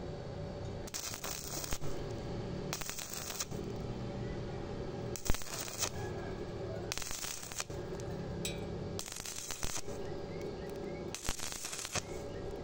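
Stick-welding arc on thin 1 mm steel plate with a 2.0 mm E6013 rod, struck in short stitches: six bursts of crackling and hissing, each well under a second, about every two seconds. Between the bursts a steady low hum runs on.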